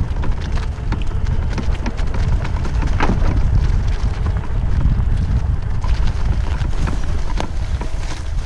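Wind buffeting the microphone over a low rumble from riding across a bumpy off-road forest track, with scattered clicks and knocks, the sharpest about three seconds in.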